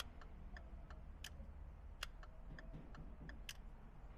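Faint, regular ticking of a Hyundai's turn-signal flasher, the indicator flashing steadily now that the combination switch's dirty contacts have been cleaned and lightly greased.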